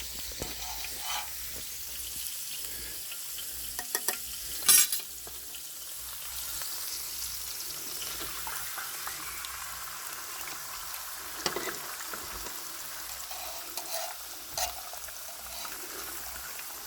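A scramble of eggs, spicy sausage and potato sizzling steadily in a pan, with a few sharp clicks and scrapes as it is stirred; the loudest comes about five seconds in.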